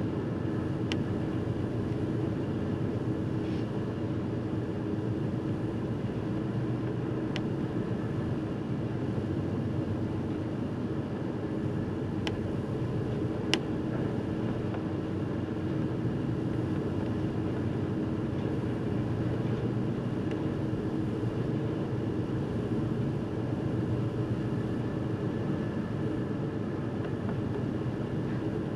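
Car ferry under way: a steady low hum from the ship's engines mixed with wind and sea noise, broken by a few light ticks, the sharpest about halfway through.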